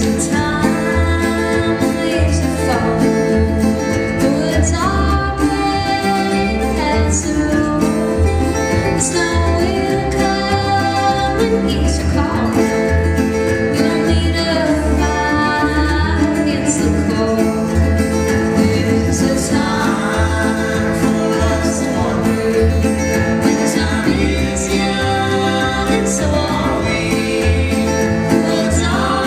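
Live country-bluegrass song with a strummed acoustic guitar, a plucked upright double bass and a picked resonator guitar, under sung vocal lines that come in phrases of a few seconds.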